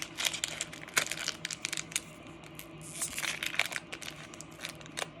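Foil Pokémon booster pack crinkling in a stream of irregular crackles as it is torn open and handled.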